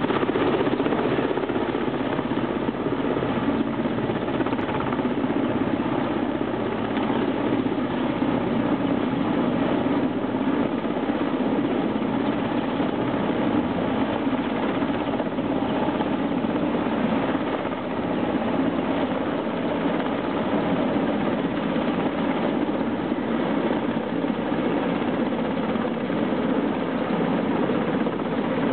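Helicopter hovering and manoeuvring low overhead, its rotor and engine running steadily.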